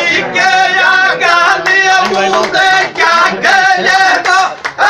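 Men's voices singing loudly in Rajasthani folk dhamal style, the phrases held on strong pitches and broken by short gaps.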